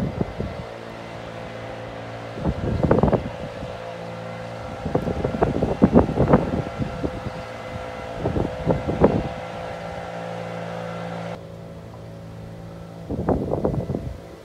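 Wind buffeting the microphone in several gusts over a steady low mechanical hum.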